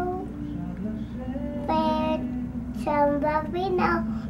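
A young child singing a slow Hebrew bedtime song: held notes in short phrases with brief pauses between them, over a steady low hum.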